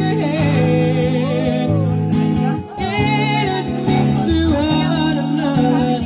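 Live acoustic guitar with a man singing, amplified through a PA speaker.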